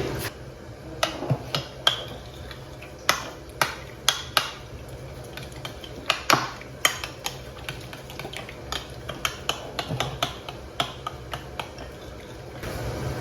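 Irregular light clicks and clinks of kitchenware being handled, a few to several knocks a second in loose clusters.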